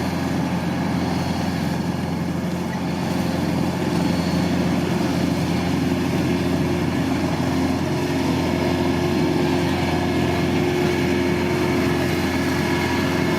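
Combine harvester's diesel engine running steadily with a continuous drone, getting a little louder about three to four seconds in.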